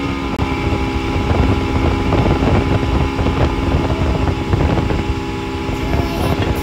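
Mercury outboard motor running steadily at speed under load, towing a water-skier, with wind rumbling on the microphone.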